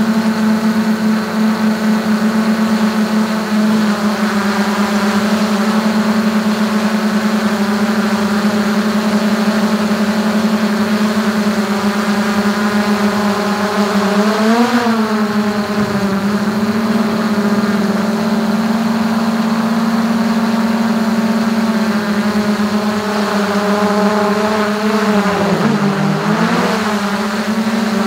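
DJI Mavic 2 quadcopter's motors and propellers humming loud and close, heard from a camera mounted on top of the drone: a steady buzz whose pitch bends up briefly about halfway through, then dips and recovers near the end as the drone manoeuvres.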